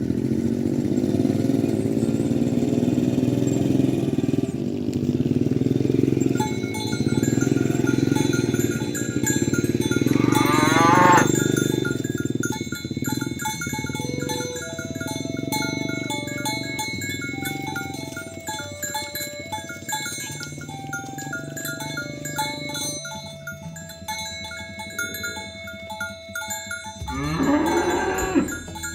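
Cattle mooing, one call about ten seconds in and another near the end, over background music with a steady melody of short notes that starts about six seconds in. A low rumble fills the first twelve seconds or so.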